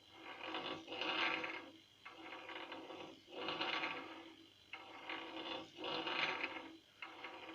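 A pressed-together Jawa 638 two-stroke crankshaft being turned by hand in homemade centres while its runout is checked with a dial indicator: a dry metallic scraping that swells and fades about five times, once with each push.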